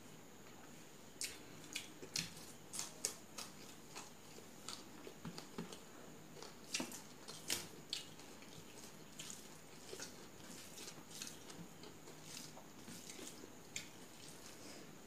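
Close-up eating sounds: chewing rice and fish curry, with irregular sharp wet mouth clicks and smacks, busiest in the first half.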